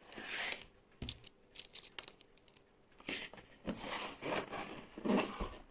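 Keyboard packaging being opened and handled: irregular rustling and crinkling with a few small sharp clicks.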